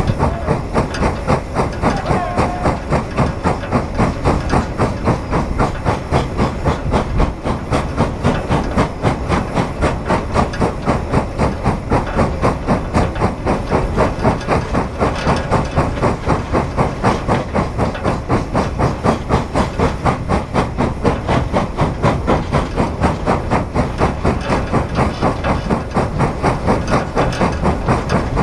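Frisco 1630, a 2-8-2 Mikado steam locomotive, working hard under a heavy freight train, heard from atop its tender. Its exhaust chuffs out of the stack in a steady rhythm of about three beats a second, with the hiss of steam.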